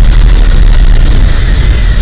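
Eachine E011 micro quadcopter hovering, its motors giving a steady high whine that wavers slightly with the throttle, over a loud low rumble.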